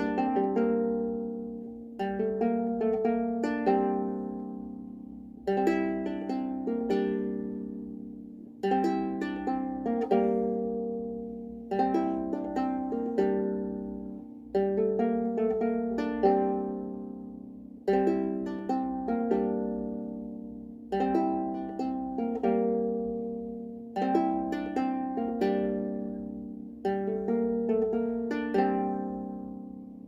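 Trossingen lyre played solo in a slow tune, its plucked strings sounding single notes and chords that start sharply and ring out, fading before the next, every one to three seconds.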